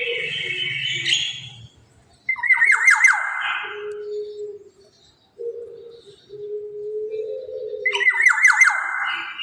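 Black-naped oriole giving harsh, raspy squawking calls, each opening with a quick stutter of notes: one fading out early, another about two seconds in, and a third near the end. A low steady tone sounds in the gaps between the calls.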